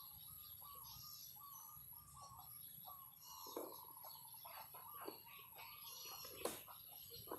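Faint birdsong: many small birds chirping and twittering in quick, overlapping calls. There is one sharp click about six and a half seconds in.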